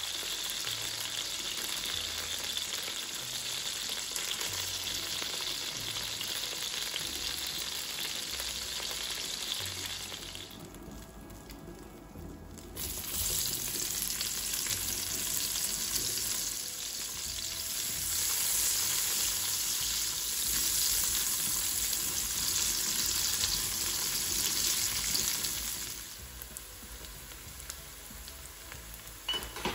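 Marinated chicken pieces sizzling steadily in hot oil in a nonstick wok as they are turned with tongs. About a third of the way in the sound briefly drops away, then sliced onions sizzle louder as they sauté in the same oil, turning quieter near the end.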